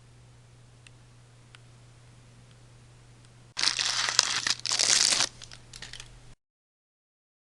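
Loud crinkling and rustling of something being handled, starting about halfway in and lasting under two seconds, followed by a few light clicks before the sound cuts off abruptly.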